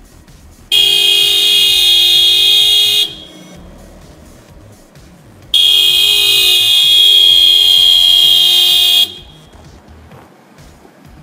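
Car horn sounding two long steady blasts, the first about two seconds long and the second about three and a half.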